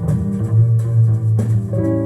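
Recorded music with plucked guitar over a strong, steady bass line, played back through Genelec mini monitor speakers driven by a small tube amplifier.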